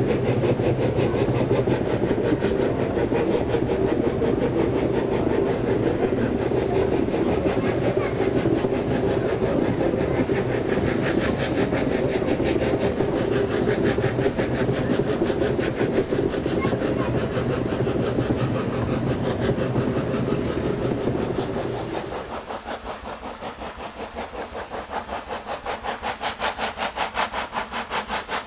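Steam rack locomotive H 2/3 No. 5, built 1894, working hard up the rack incline with a rapid, steady exhaust beat over a heavy rumble. About 22 seconds in it turns quieter and more distant, the separate exhaust beats standing out more clearly.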